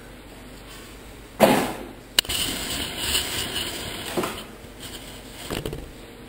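Sudden loud thump about a second and a half in, then a sharp click and a run of uneven knocks and rustling, as a handheld camera is moved and set down on a hard floor.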